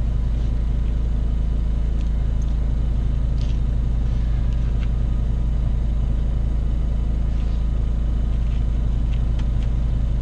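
A steady low drone that does not change, with a few faint light taps of a fork and knife on a paper plate.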